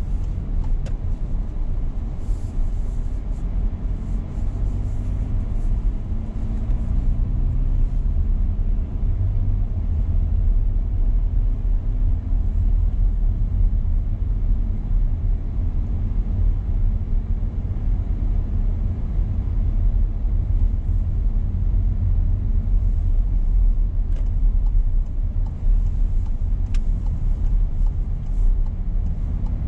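Steady low rumble of a car on the move, engine and road noise together. A faint engine note rises and falls in the first ten seconds.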